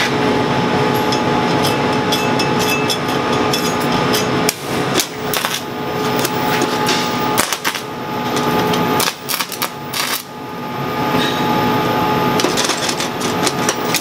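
Stick (shielded metal arc) welding: the arc between the electrode and the steel workpiece crackles and sputters steadily, dropping out briefly a few times before it picks back up.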